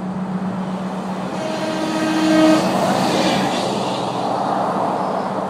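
A passing vehicle sounds its horn in one held honk of about a second, then goes by with a swell of road noise. A steady low hum runs underneath.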